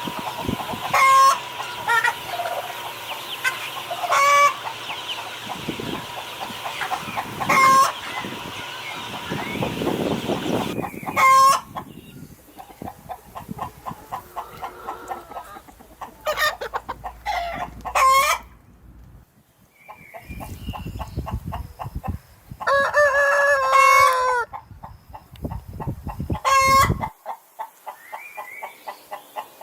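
Chickens clucking and calling loudly in short calls every few seconds, with one longer drawn-out call about two-thirds of the way through. A steady high hum sits behind the calls for the first third.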